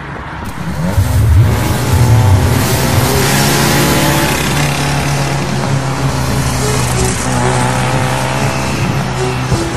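Car engine revving hard with tyres squealing, loud from about a second in over a steady low drone. A few notes of music come in near the end.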